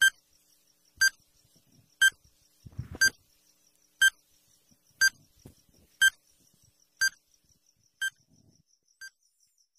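Countdown timer sound effect: a short electronic beep once a second, ten in all, the last one fainter, over a faint, rapid, high-pitched ticking.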